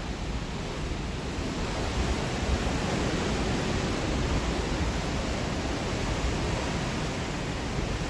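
Steady rush of wind across the microphone on the open deck of a moving cruise ship, blended with the hiss of the sea, with an uneven rumble at the bottom.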